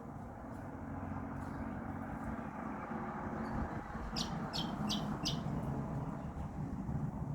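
A lorikeet giving four short, high-pitched calls in quick succession about four seconds in, over a steady low rumble.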